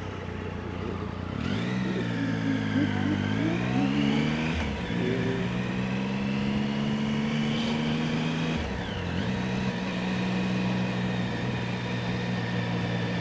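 2008 Triumph Speed Triple's 1050 cc three-cylinder engine accelerating away, rising in pitch. It drops at a gear change about five seconds in, pulls again, shifts once more near nine seconds, then runs steadily.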